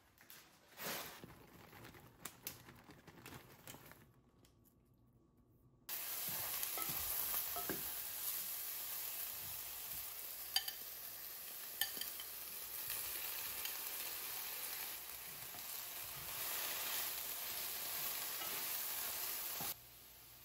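Kale and mushrooms sizzling in a hot sauté pan as they are stirred with a wooden spoon, with two sharp knocks of the spoon on the pan. The sizzle starts suddenly about six seconds in and cuts off abruptly near the end, after a few soft handling sounds at the start.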